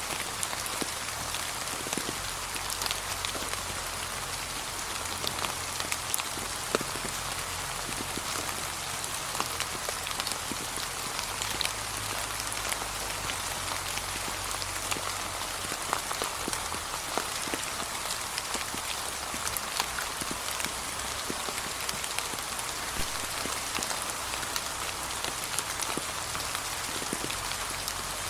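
Steady, gentle rain falling on fallen leaves, with single drops ticking out clearly now and then.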